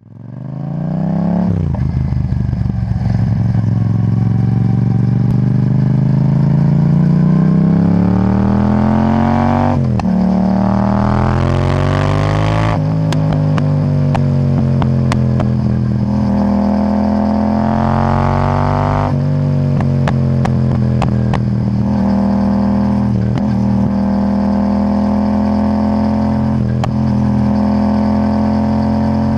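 Yamaha MT-07's parallel-twin engine running through an Akrapovic titanium exhaust with no catalytic converter, revved up slowly and snapped shut three times, about a third, halfway and two-thirds of the way in. Sharp backfire pops and crackles come from the exhaust as the revs fall. It then runs steadily with the odd pop.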